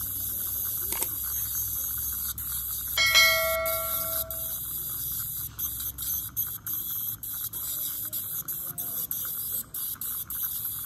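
Ultrasonic dental scaler running against the teeth to remove hardened tartar, with a steady high-pitched hiss over a low hum that fades out after about six seconds. About three seconds in, a single bell-like ring sounds and dies away over a second or so.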